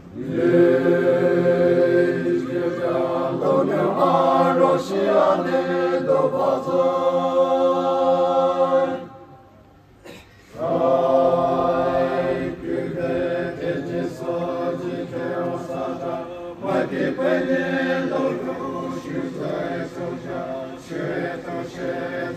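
A group of voices chanting together in long held phrases, with a short break about nine seconds in before the chant resumes.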